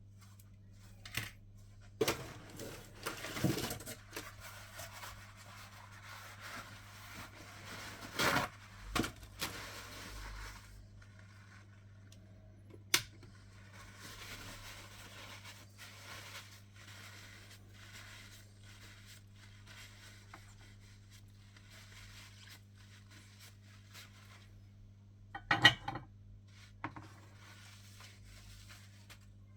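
Small handling sounds at a soldering bench: scrapes, rustles and clicks of tools on a circuit board, with a single sharp click partway through and a louder cluster of knocks near the end, over a steady low hum.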